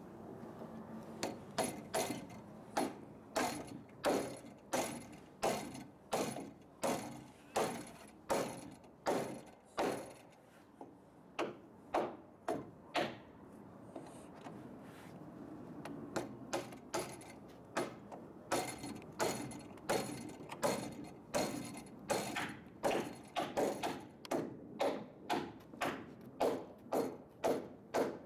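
Hammer driving nails into timber roof rafters: a steady run of sharp blows, about one and a half to two a second, with a short break around the middle before the blows resume, a little faster.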